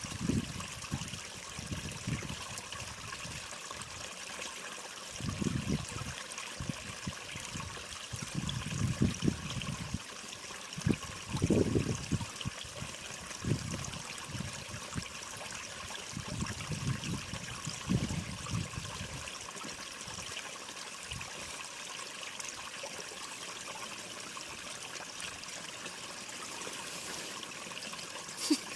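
A mountain stream running, a steady watery rush, with irregular low rumbles during the first two-thirds that fade out later.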